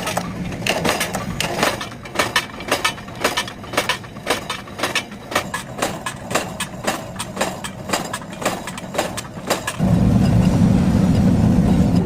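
Forging machine striking chromoly steel washer blanks in a fast, even rhythm of sharp metallic blows, about three a second. About ten seconds in the strikes stop and a louder, steady low machine noise takes over.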